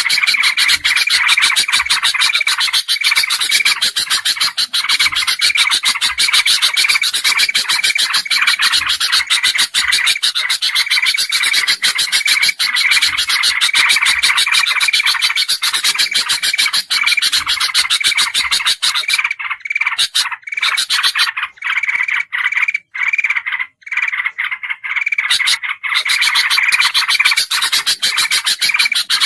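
Bird-lure recording of bulbuls (golden bulbul mixed with crested and yellow-vented bulbul) calling noisily: a dense, rapid chatter of calls with one note repeating in a steady rhythm, breaking up with short gaps about two-thirds of the way through.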